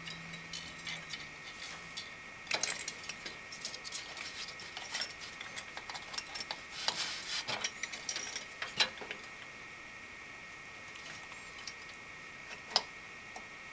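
Screwdriver turning a mounting screw of a Noctua NH-C14 CPU cooler down through the fan, making a run of small metallic clicks and scrapes that stops after about nine seconds, then one sharp click near the end.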